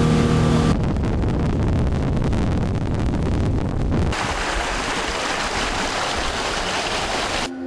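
Boat moving fast on a river: wind buffets the microphone over rushing water, and from about halfway the hissing splash of the wake thrown up along the hull takes over. The sound cuts off abruptly just before the end.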